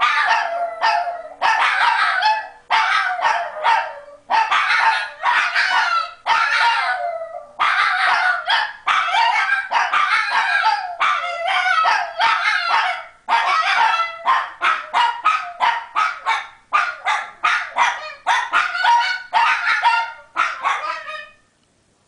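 Two Shih Tzus howling along together, set off by a grandfather clock's hourly chime. Long howls that fall away at the end give way to quicker, shorter yipping calls in the second half, then stop near the end.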